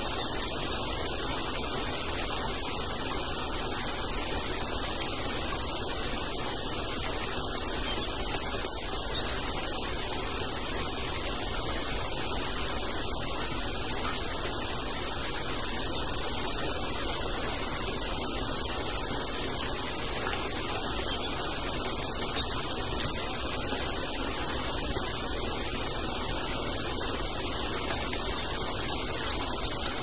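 Steady rain falling, with a small bird giving a short high two-note chirp, the first note higher than the second, repeated regularly about every three and a half seconds.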